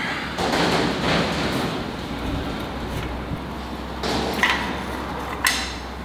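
Hand socket wrench working lug nuts loose on a Ford F-350 wheel: a second or so of scraping turns, then two sharp metallic clinks about a second apart near the end.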